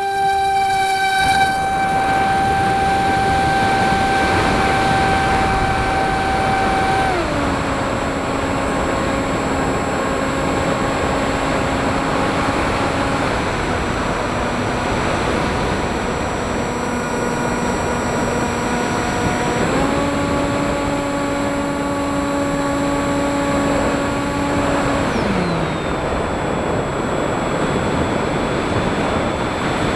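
FPV drone's motors and propellers whining as it flies, the pitch holding steady and then stepping down and back up several times with throttle changes, over a steady rushing hiss.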